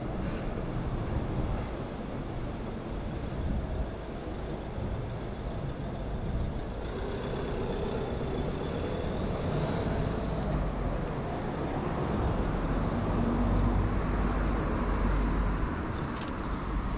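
Street traffic: cars and a light flatbed truck driving past, a steady hum of engines and tyres that swells into a deeper rumble in the second half.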